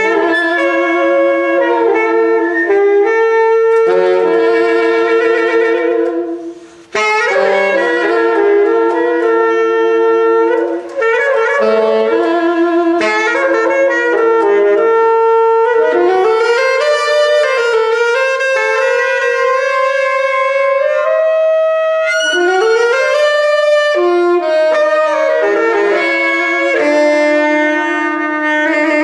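Two saxophones, a tenor and a smaller saxophone, playing an experimental free-form duet. They hold long, overlapping notes with sliding pitch bends, and there is a brief break about six and a half seconds in.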